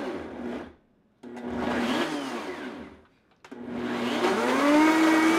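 Countertop blender pulsed on and off with frozen pineapple chunks and coconut milk: two short runs of about two seconds with brief stops between, then a longer run near the end in which the motor's pitch rises. The blade is labouring on frozen chunks that are too big.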